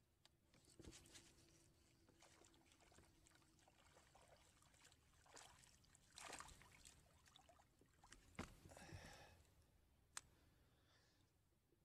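Near silence with faint water sounds: soft trickling and small splashes, with a few light knocks, the loudest around six and eight and a half seconds in and a sharp tick about ten seconds in.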